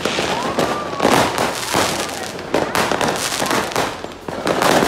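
New Year's Eve fireworks going off in dense, irregular bangs and crackles, with a rocket's rising whistle about half a second in.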